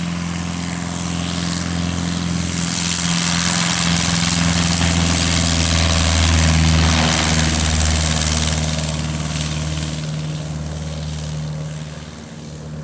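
Cessna 150K light aircraft at full throttle on its takeoff run, its four-cylinder Continental O-200 engine and propeller running with a steady note. The sound grows louder, peaks about halfway through as the plane passes, then fades as it moves away.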